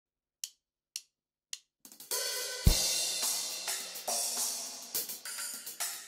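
Three short clicks counting in, then a drum kit starts playing about two seconds in, opening with a bass drum and cymbal crash and carrying on as a groove under the bright wash of Kingdo Artist Bright B20 bronze cymbals.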